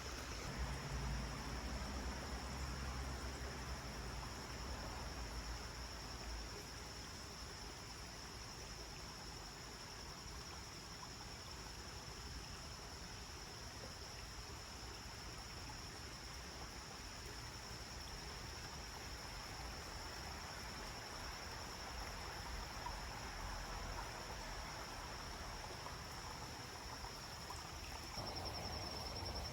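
Forest ambience: insects keep up a steady high-pitched drone over a soft, even background hiss, with some low rumble in the first few seconds and again near the end.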